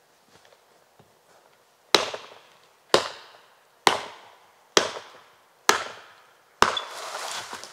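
Gränsfors Bruk Wildlife Hatchet chopping into a leaning tree trunk: six sharp, ringing blows about a second apart. The last blow runs into a longer crackling crash as the trunk gives way.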